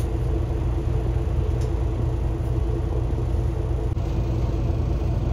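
Steady low engine and road rumble inside a moving bus.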